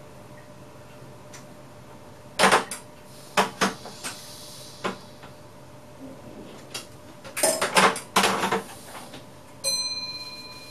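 Inside the cab of a VIRM double-deck electric train: a series of sharp knocks and metallic clatters, then near the end a single bell-like ding that rings on and fades.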